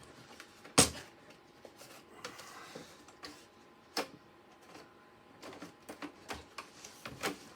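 Plastic clicks and knocks from handling an opened Xbox One X console and its casing: one sharp knock about a second in, another near the middle, and a run of lighter clicks near the end.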